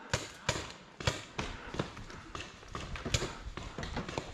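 Paintball markers firing: scattered, irregular sharp pops, one every half second or so, with no steady rhythm.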